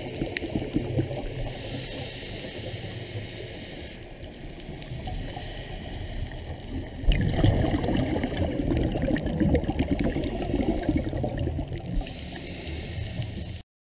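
Muffled underwater gurgling and churning water noise, picked up by a camera in a dive housing. It grows louder about seven seconds in and cuts off suddenly near the end.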